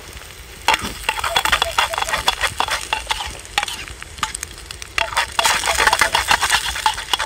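A metal spoon scraping and stirring in a small metal mess-tin pan while an egg fries and sizzles in it: the egg is sticking to the pan and is being worked loose. The scraping comes in two bouts, the first starting about a second in and the second about five seconds in.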